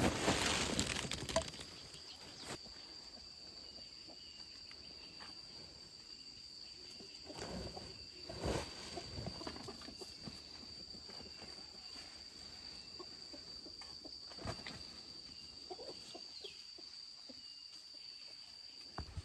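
Quiet outdoor ambience: a steady high-pitched whine throughout, with a loud rustle at the start and scattered knocks and rustles from handling work.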